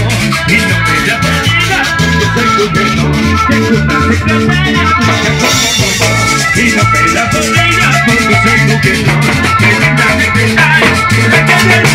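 Live band playing an instrumental passage of Latin dance music at a dance, with a steady, repeating bass and percussion beat and sustained melody notes over it.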